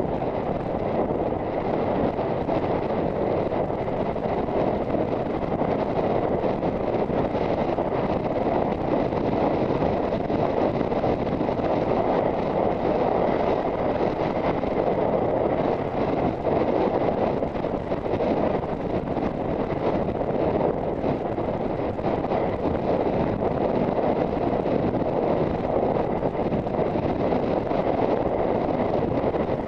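Steady wind rushing over the microphone of a rider-mounted camera on a galloping horse, an even roar with no breaks.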